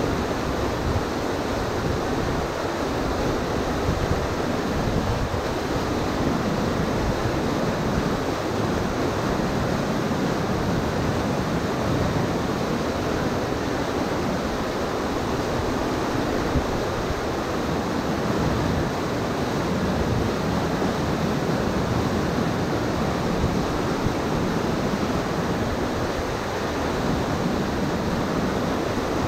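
Whitewater rapids rushing steadily over a rocky drop in a river.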